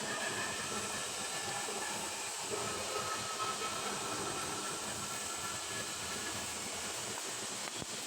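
Stick (SMAW) welding arc burning on carbon steel pipe, a steady sizzling hiss.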